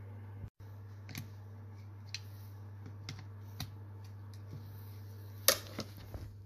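Scattered small clicks and taps from handling a Model T trembler coil and a socket on its terminal nuts, about eight in all at irregular spacing, the loudest near the end. A low steady hum runs underneath.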